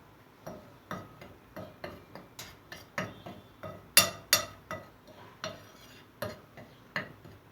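A spoon stirring flour and spice powder on a plate, clinking against the plate in short repeated strokes, about two to three a second, with two louder clinks about four seconds in.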